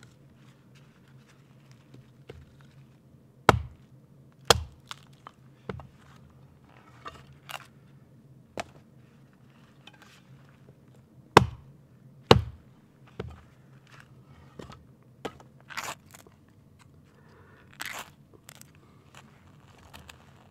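Hatchet chopping and splitting kindling from a wood log: irregular sharp chops, the hardest strikes coming in two pairs about a second apart, with lighter knocks and a couple of splintering cracks between.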